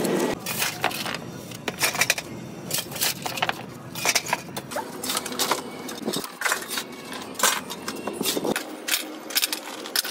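Irregular sharp metallic clinks and clanks of metal parts being handled or struck, with short pauses between them.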